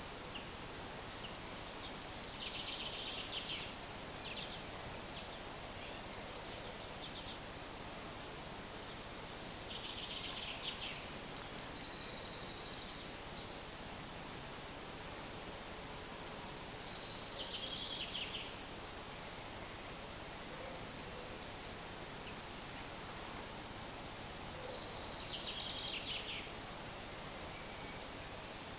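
Woodland songbirds singing: bouts of rapid, high trilled notes a couple of seconds long, repeated every few seconds over a faint steady hiss.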